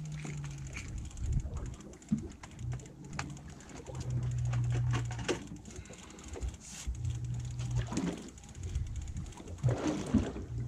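Fishing reel being cranked as a small fish is reeled up from the bottom, giving many short clicks and knocks, over a low hum that comes and goes several times.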